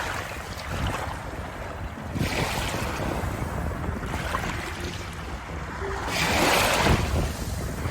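Waves washing in, rising into a rushing surge about every two seconds, the strongest one near the end.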